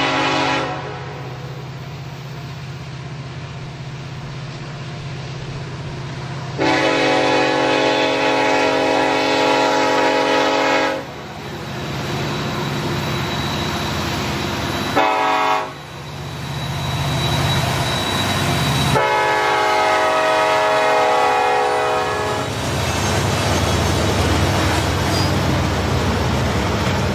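Diesel freight locomotive's multi-note horn sounding the grade-crossing pattern: the end of one long blast, a second long blast, one short, then a final long. Under it is the steady low rumble of several diesel locomotives lugging a heavy train up a grade, growing louder as they pass close by.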